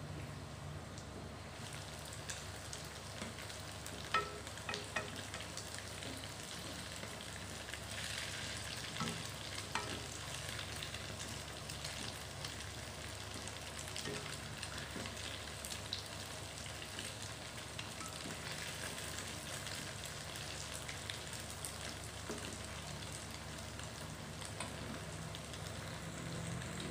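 Egg-coated tofu cubes sizzling in hot oil in a wok, with a few clicks and scrapes of a plastic spatula against the pan as the pieces are turned.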